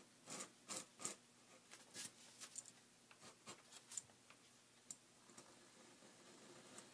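Book repair knife scraping and cutting away the old paper pastedown along the edge of a book cover board: faint short scratches, several close together in the first couple of seconds, then sparser.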